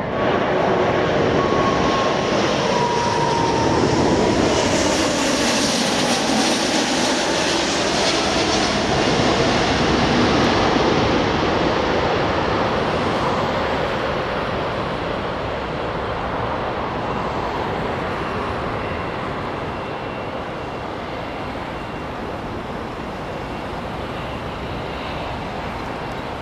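Four-engine Airbus A340-600 with Rolls-Royce Trent 500 engines passing low overhead on final approach. An engine whine falls in pitch in the first few seconds, then comes loud jet noise that slowly fades as the airliner touches down and rolls out along the runway.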